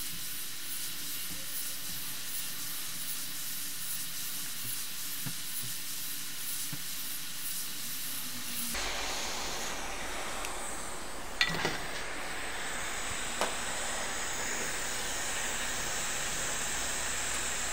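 Steady hiss of blowing air at a microsoldering bench, changing in tone about nine seconds in, with a couple of small clicks later.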